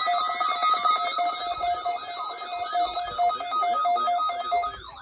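Electronic alarm beeping rapidly on two pitches at once, cutting off near the end. Under it a siren warble, sweeping up and down a few times a second, fades in and grows louder.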